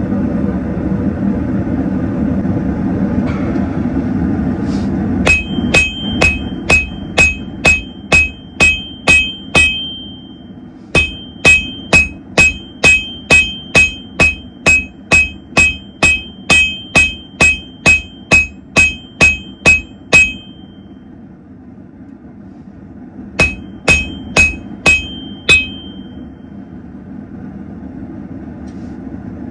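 Hand hammer striking hot steel on an anvil in three runs of steady blows, about two and a half a second, each with a bright ring. A steady rush from the fan-blown forge fills the first few seconds and stays faintly under the hammering.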